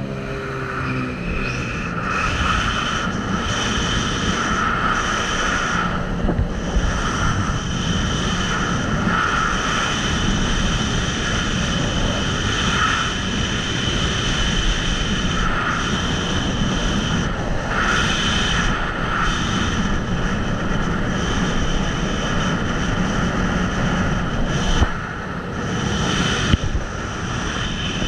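Sea-Doo Spark personal watercraft running under power: a steady engine and jet-pump whine over rushing water, with wind on the microphone. The level dips briefly near the end, then picks up again.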